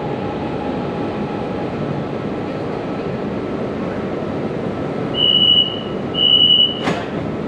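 Hanoi Cat Linh–Ha Dong metro train heard from inside the car, with a steady rumble as it pulls into a station. About five seconds in come two high electronic beeps about a second apart, then a sharp click.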